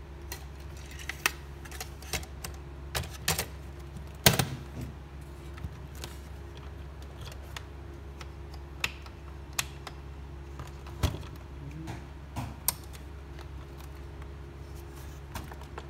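Scattered clicks and knocks of hands handling a FANUC Series 0i Mate-TC control unit, working on the main board and fitting its yellow plastic cover back on, with the loudest knock about four seconds in. A steady low hum runs underneath.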